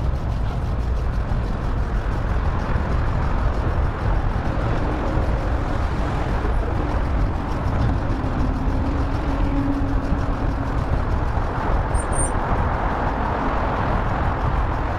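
Steady wind and road noise on the microphone of a moving bicycle, with a faint engine hum swelling and fading midway as a vehicle passes.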